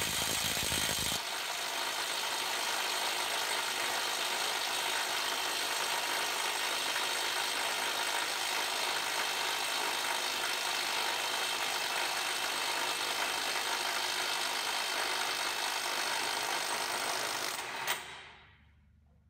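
Kielder KWT-002 18V cordless brushless impact wrench running against a torque tester, its hammer mechanism impacting in a steady, dense rattle. It is loudest in the first second, runs evenly for about seventeen seconds, then stops and winds down.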